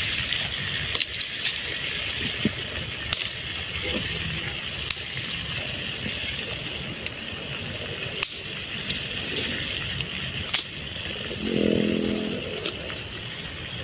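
Banana fritters in batter sizzling steadily in a small pan of hot oil over a wood fire, with sharp pops and crackles scattered throughout from the burning sticks and spitting oil. Near the end, a short low pitched hum.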